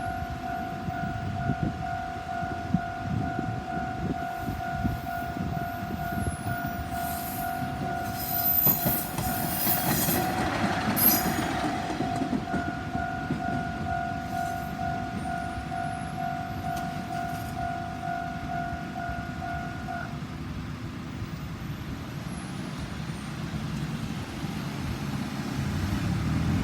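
Japanese level-crossing alarm: an electronic warning bell ringing in a steady rapid pulse, which stops about twenty seconds in. A diesel railcar passes through the crossing, loudest about ten seconds in, with rumble and some high wheel noise.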